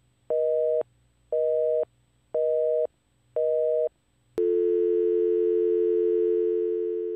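Telephone busy signal beeping four times, about one beep a second, then switching about four seconds in to a steady dial tone that begins to fade near the end. The call has failed: it reached a number not in service.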